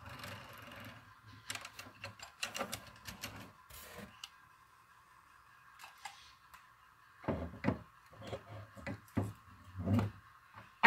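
Hands working a hinged wooden ramp under a model railroad shelf layout: a clatter of light wooden clicks and taps, a pause, then a run of heavier knocks and bumps, ending in one sharp knock.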